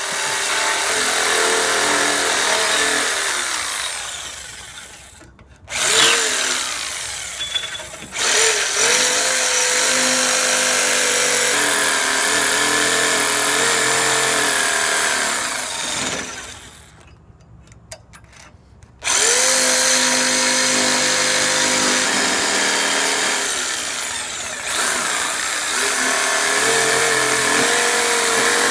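Corded jigsaw cutting aluminium, its motor and blade running loudly. The cut goes in several runs: the motor winds down and starts up again three times, with a pause of about two seconds after the middle.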